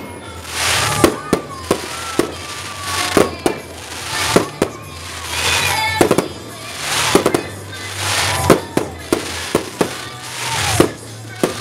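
Aerial fireworks shells bursting: sharp bangs about once a second, some in quick pairs, each followed by a rising hiss and crackle of scattering sparks.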